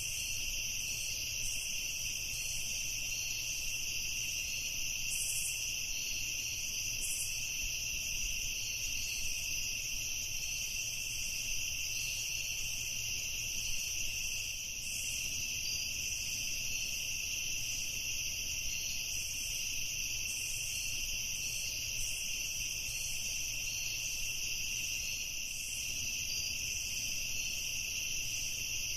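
Evening chorus of crickets: a steady, unbroken high trilling.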